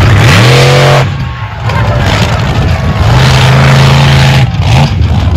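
Monster truck engine revving hard as the truck drives the dirt arena. The throttle opens about a quarter second in and is let off at about one second. It opens again for about a second and a half from about three seconds in, drops, and is blipped once more near the end.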